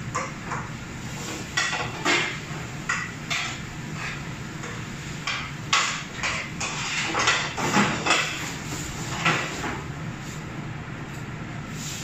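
Metal cookware clanking and scraping as a pan is worked on a commercial gas range, with irregular knocks that come thickest in the middle, over a steady low hum.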